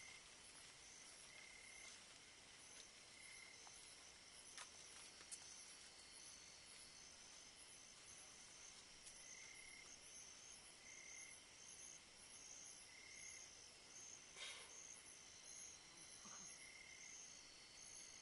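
Faint night insects chirping: a steady high trill with short chirps repeating every second or two, and a brief faint noise about three-quarters of the way through.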